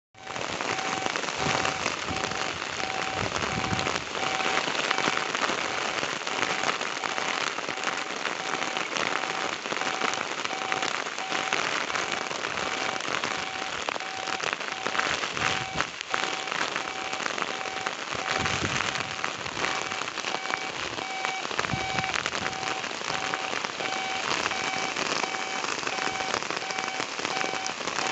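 Heavy rain pouring down, a dense steady hiss that starts suddenly at full strength, with a steady repeating beep running faintly under it.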